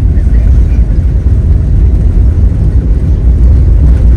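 Loud, steady low rumble inside a jet airliner's cabin as the plane rolls on the ground after landing: engine and wheel noise.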